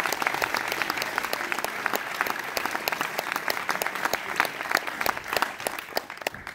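Audience applauding, a dense crowd of handclaps that tapers off slightly near the end.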